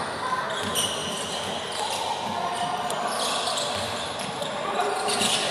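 Basketball game in a large hall: the ball bouncing on the court and short high squeaks of players' shoes, with voices calling in the background.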